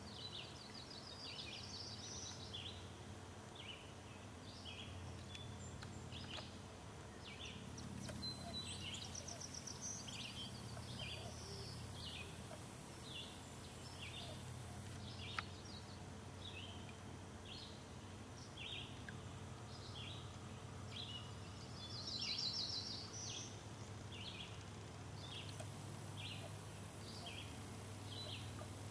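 Several birds singing and calling from the shoreline: many short high chirps, with a few buzzy trills, over a low steady background rumble. A single sharp click about fifteen seconds in.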